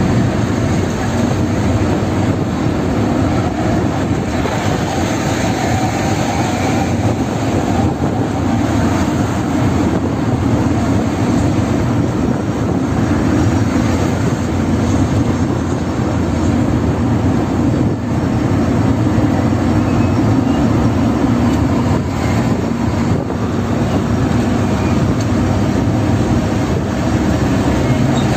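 Steady engine and tyre noise heard from inside a vehicle cruising on a highway, a low, even drone.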